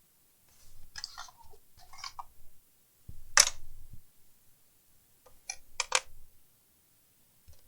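Clicks and scrapes of laptop case parts being handled during disassembly: scraping bursts about one and two seconds in, the loudest sharp click about halfway through, then a few quick clicks a couple of seconds later.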